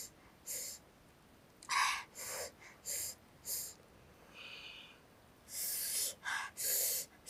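Roasted eggshell being cracked and peeled off by hand: a series of short, scratchy bursts at uneven intervals.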